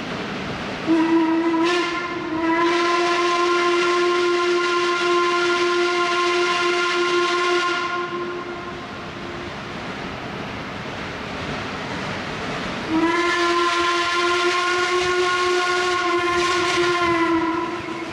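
Heisler No. 6 geared steam locomotive's steam whistle blowing for a road crossing: a short blast, then a long one, and after a pause of about five seconds another long blast, all on one steady pitch. The locomotive's running noise carries on underneath between the blasts.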